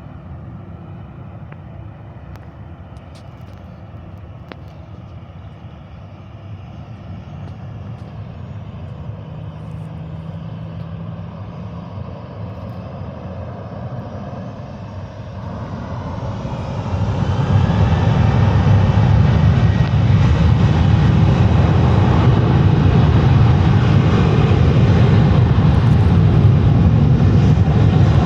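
Boeing 737-800's CFM56-7B jet engines running low and steady, then spooling up with a rising whine about two-thirds of the way in to a loud, steady rush of takeoff thrust.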